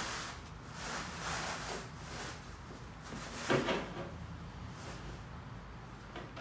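Parts of an animatronic clown prop being handled and fitted together: rustling and scraping, with a sharper knock about halfway through.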